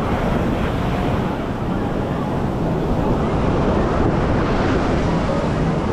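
Surf washing onto the beach, with wind buffeting the microphone and a crowd of beachgoers' voices mixed into the steady noise.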